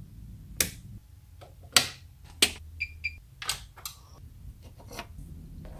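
Sharp clicks of switches being flipped and pressed, one every second or so, with a short double electronic beep about three seconds in, over a low steady hum.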